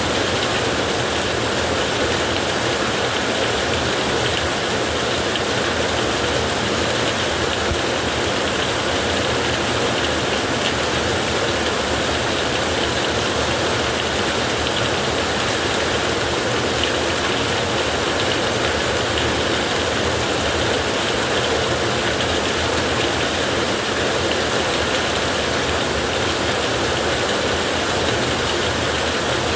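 Heavy rain falling steadily on a tin roof, an even, unbroken hiss with no thunder claps.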